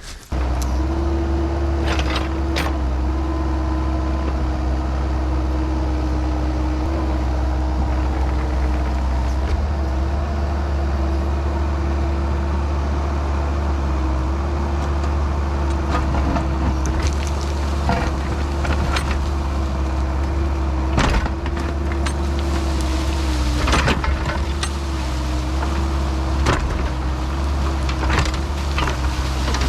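Kubota excavator's diesel engine running steadily under work, with a steady whine above the engine drone and scattered knocks and scrapes as the tilt grading bucket digs into the dirt and gravel bank.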